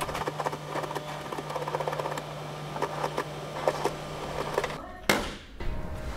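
Steady low hum with faint rustling and small clicks. The hum stops abruptly almost five seconds in, followed by one sharp knock.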